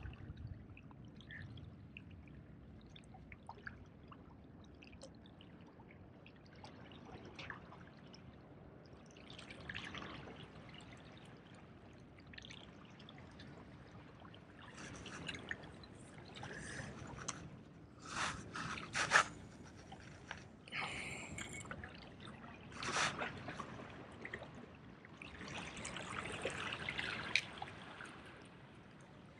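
Small waves lapping and washing against the boulders of a rock jetty, faint, swelling in several louder surges with a few sharper splashes a little past the middle.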